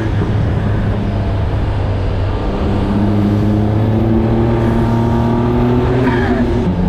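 Ford Transit van's swapped-in Raptor twin-turbo 3.5-litre V6 running steadily under way. Near the end a whine falls in pitch and the engine note steps down.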